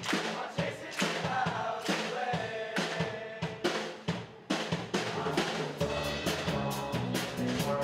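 Music with a steady drum-kit beat of snare and bass drum under sustained pitched melody notes.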